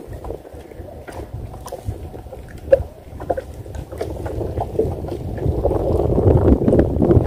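Wind buffeting the microphone over water lapping against a small wooden boat, growing louder in the second half, with a short knock about three seconds in.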